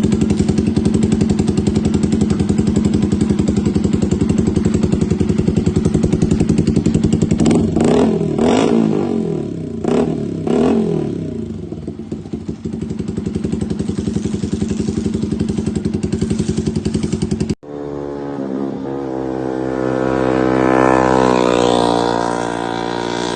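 Yamaha motorcycle with an Austin Racing aftermarket exhaust idling, then blipped four times in quick succession, each rev rising and dropping back to idle. After a sudden cut about 18 seconds in, a motorcycle engine idles and its revs climb steadily before easing a little near the end.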